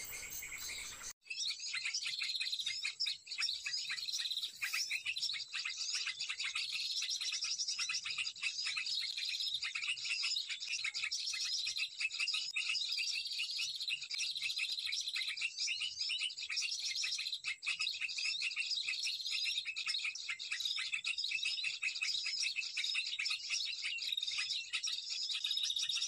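Dense chorus of small songbirds chirping and twittering without a pause, the same high twittering phrases coming round again every second or two. It starts abruptly about a second in.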